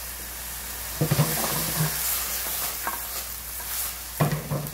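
Bean sprouts and dried chillies sizzling in an oiled wok over high heat, stirred with a wooden spatula that knocks against the pan in a short clatter about a second in and again near the end.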